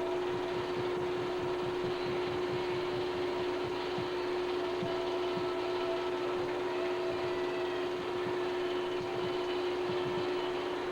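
Steady machine hum: one strong held tone with fainter overtones over an even hiss, unchanging throughout.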